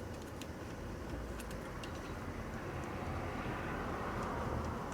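Low, steady rumble of road traffic that swells slightly through the middle, with a few faint small clicks.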